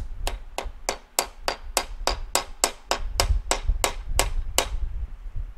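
Light, evenly spaced hammer taps, about three and a half a second, driving a new vent into place in a two-stroke engine case. The tapping stops about four and a half seconds in.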